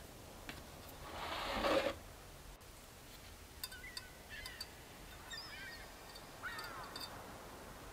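A short scraping rustle about a second in, then faint bird calls: a string of short chirping calls from about halfway through.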